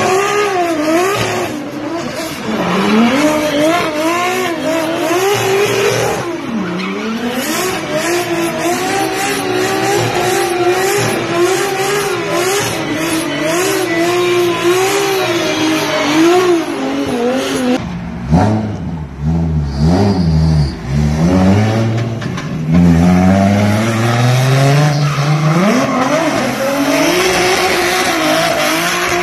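Turbocharged 2JZ inline-six engines on drift cars at full throttle, the revs swinging up and down without pause as the cars slide, with tyre squeal. About eighteen seconds in another car takes over, deeper in pitch, its revs sweeping up and down in long climbs.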